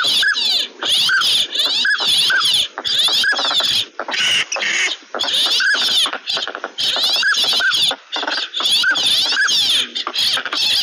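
A flock of ducks calling continuously, pintails among them: short, repeated rising-and-falling whistles of pintail drakes over rapid, high, raspy chatter from many birds at once.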